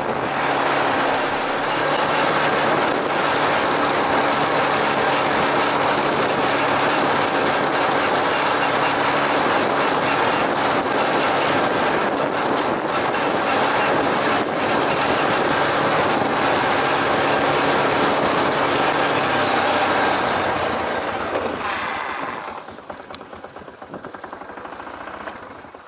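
ATV engine running steadily under way, with a loud rushing noise of travel over it. About 21 seconds in, the sound dies down to a much quieter level.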